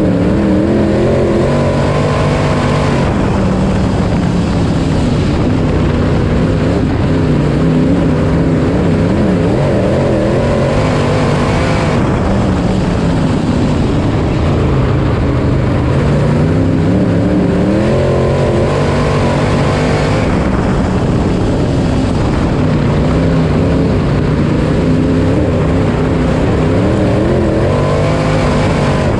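IMCA Modified race car's V8 engine heard from inside the car at racing speed, its pitch climbing as it accelerates and dropping as it eases off, about every nine seconds lap after lap.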